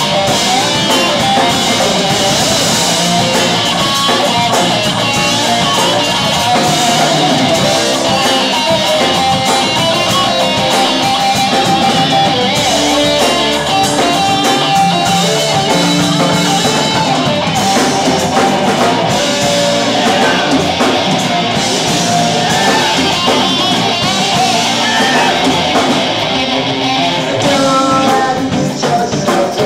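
Live rock band playing loudly and steadily: electric guitar over a drum kit.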